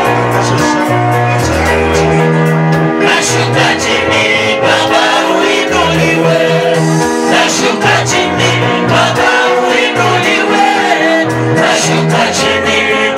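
Praise and worship music: singing over a band with a moving bass line and held instrumental chords.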